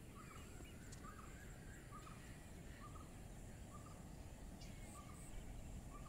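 Faint evening riverside ambience: a bird repeats a short call about once a second over a steady low rumble, with a thin steady high whine above.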